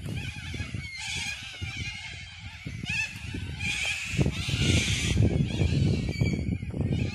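Birds giving repeated harsh calls from the trees, in bursts every second or two. Under them runs a low rumble that grows louder in the second half.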